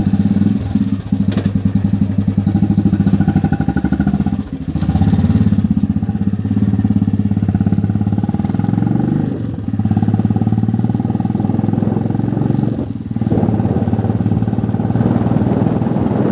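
Motorcycle engine running while being ridden, with a fine, rapid firing pulse. The pitch rises around the middle as it speeds up, and it eases off briefly twice, once about four seconds in and again near the end.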